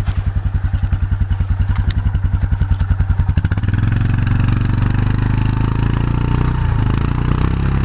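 Yamaha Kodiak ATV's single-cylinder four-stroke engine putting at idle with a fast, even beat, then about three and a half seconds in opened up and held at higher revs as the quad is driven out of a deep mud rut.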